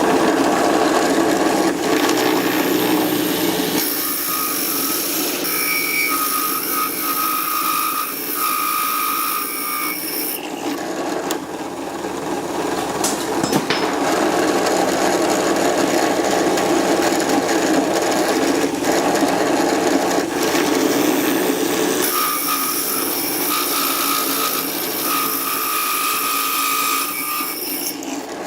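Power tool cutting and trimming wood, its motor running continuously. A steady higher whine rides over it from about four to ten seconds in and again from about 22 seconds until near the end.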